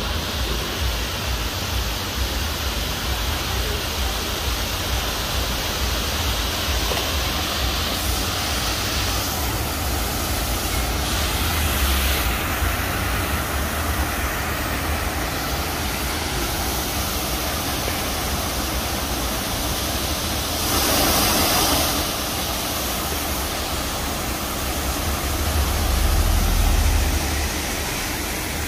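Large fountain's jets and water curtain splashing and cascading, a steady rushing of water, with a low rumble on the microphone that swells near the end.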